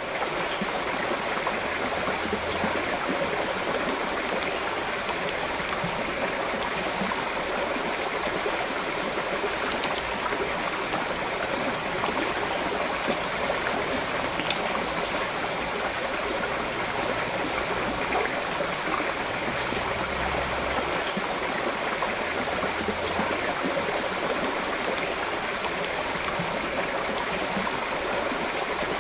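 Shallow gravel-bed stream running steadily: a constant rush of flowing water.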